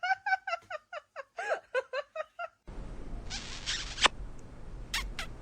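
Rapid run of short, squeaky, pitched animal chirps, about five a second. It breaks off abruptly partway through and gives way to a steady hiss and hum, a brief rustle, and a few sharp clicks near the end.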